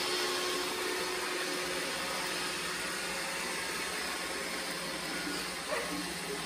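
Robot vacuum cleaner running: a steady whirring noise with a faint low hum.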